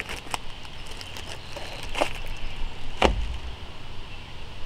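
Clear plastic bag crinkling in sharp, brief crackles as a hard plastic battery case is pulled out of it, with the loudest crackle and a low thump about three seconds in.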